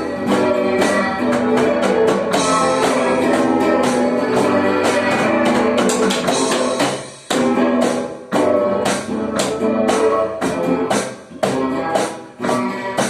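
A band plays an instrumental passage with guitar and drums. About seven seconds in the sound drops out briefly, then comes back as choppier, stop-start hits.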